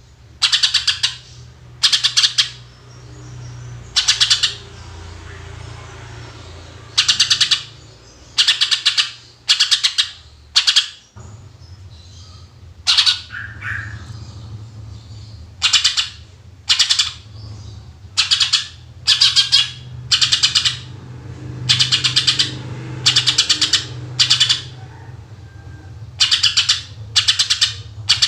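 Green leafbird (cucak ijo) singing in short bursts of rapid repeated, chattering notes, each about half a second long and coming every second or so, over a low steady hum.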